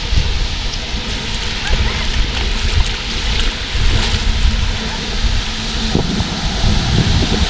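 Wind buffeting the microphone over a steady rush of surf, with a low steady hum that stops about six seconds in.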